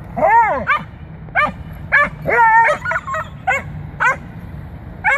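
A beagle and a dachshund puppy barking back and forth at each other in play, about ten barks, two of them drawn out into longer yowls.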